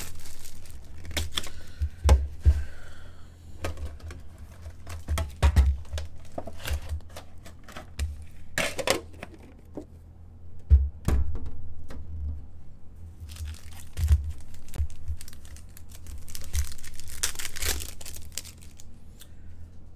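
Plastic shrink wrap crinkling and tearing as a trading-card box is unwrapped, with sharp knocks from the box being handled. A foil card pack then rustles as it is opened, with bursts of crinkling in the second half.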